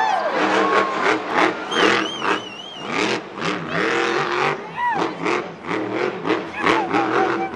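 Monster truck engine revving hard in repeated short bursts, a few each second, over arena crowd noise.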